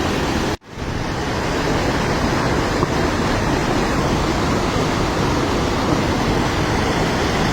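Floodwater rushing: a loud, steady wash of noise, broken by a sudden cut shortly after the start before it resumes.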